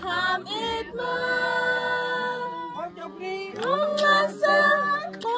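Voices singing together, with long held notes and sliding pitch over a steady low hum.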